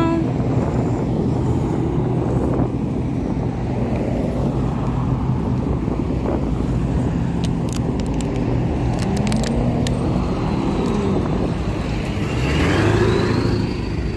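Street traffic of cars and pickup trucks rolling slowly past and idling, a steady mix of engine hum and tyre noise. Near the end a passing engine's note rises as it speeds up.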